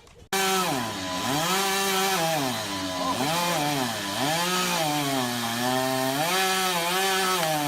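Two-stroke chainsaw running loud, starting abruptly; its engine note dips and climbs again over and over, as when the saw bogs under load and revs back up.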